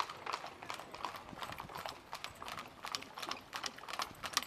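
Hooves of a pair of carriage horses clip-clopping on an asphalt road, the beats growing louder near the end as the horses come closer.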